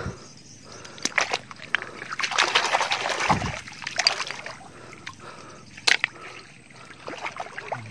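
Shallow muddy water sloshing and splashing in irregular bursts as hands feel through it among mangrove roots, with one sharp click about six seconds in.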